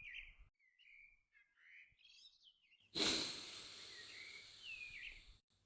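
Small birds chirping and tweeting in short gliding calls. About three seconds in, a steady hiss of background noise comes in under the chirps and cuts off shortly before the end.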